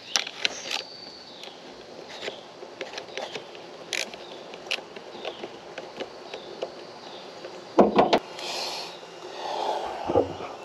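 Hands working at a mower seat's armrests and vinyl-and-fabric seat-back cover: small clicks, scrapes and rustles, with a couple of loud knocks about eight seconds in and another shortly before the end as the seat is shifted about.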